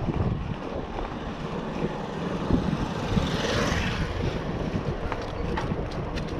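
Wind buffeting the microphone of a moving bicycle, over a low rumble from riding on asphalt. A hiss swells about three seconds in, and a few light clicks come near the end.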